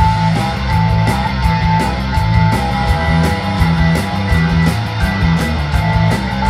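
Live ska-punk band playing an instrumental passage without vocals: electric guitar, bass and drums, with a held lead melody over a steady, even cymbal beat.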